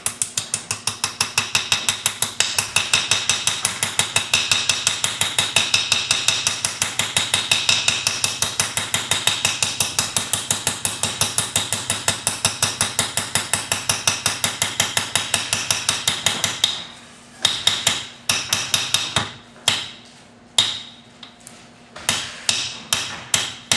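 Small hammer lightly tapping a new needle bearing into the armature-gear bore of a Bosch 11304 breaker hammer's housing. The quick, light taps come several a second in a steady run, then, about two thirds of the way in, slow to short groups with brief pauses between them.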